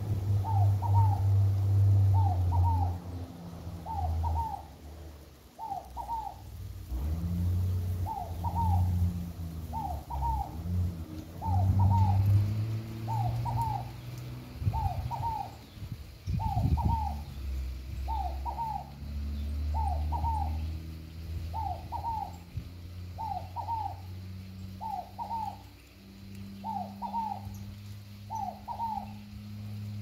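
Scaled dove (fogo-apagou) calling its repeated 'fo-go-pa-gou' phrase, a quick cluster of cooing notes about every second and a half to two seconds. A low, shifting rumble runs underneath.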